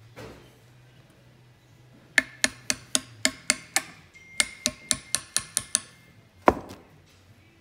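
A hammer taps on a socket used as a driver, seating a new fork seal in a Honda CRF70 fork tube. There are two quick runs of about seven metallic, ringing taps each, then one harder blow near the end.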